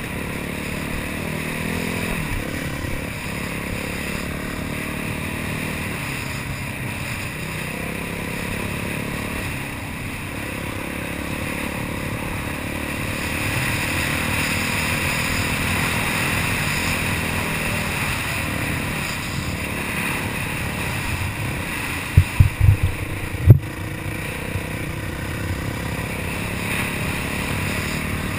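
Yamaha YZ450F single-cylinder four-stroke dirt bike engine running under throttle while riding over rough ground, heard close on board with rattle and wind noise. A few sharp loud knocks come about 22 seconds in, with one more a second later.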